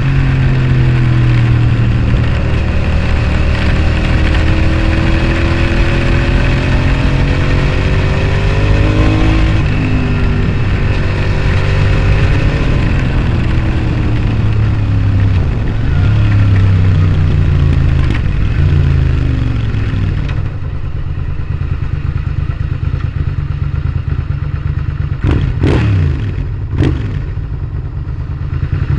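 Suzuki SV650S V-twin running through a Scorpion exhaust while ridden, its pitch rising and falling with the revs. About twenty seconds in it drops to a lower, quieter run, and two brief sharp sounds come near the end.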